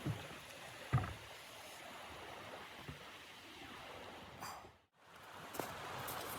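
Steady blizzard wind noise with a few dull low thumps in the first three seconds. The sound drops out briefly about five seconds in, then returns with faint clicks.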